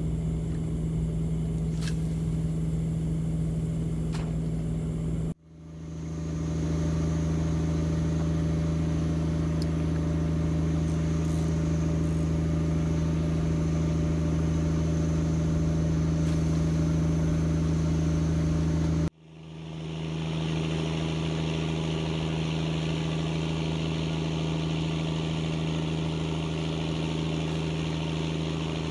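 Engine running steadily with a constant low hum. It breaks off sharply twice and fades back up each time.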